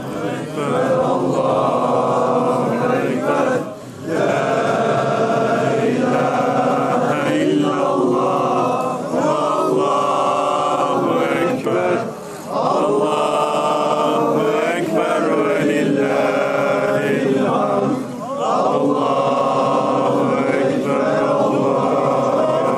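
A large crowd of male mourners chanting together in unison, with long held phrases that break briefly three times.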